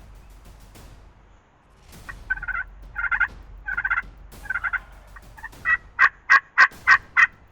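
Series of wild turkey yelps: about four softer, rattly calls spaced under a second apart, then about six loud, sharp yelps in quick succession near the end.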